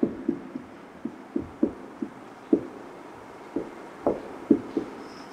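A marker knocking and tapping against a wall-mounted whiteboard while words are written, about a dozen irregular, dull knocks.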